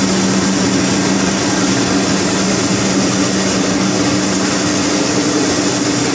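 Steady machinery din of a continuous belt fryer line running: an even rushing noise with a low hum underneath, part of the hum dropping away about a second and a half in.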